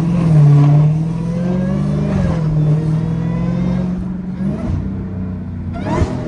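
Dodge Hellcat's supercharged V8 engine pulling under acceleration, then holding steady revs, with a quick sharp rise in revs near the end.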